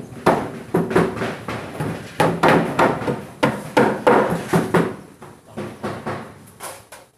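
Hammer blows knocking nails into plywood mounting boards: irregular sharp knocks about two a second, thinning out near the end.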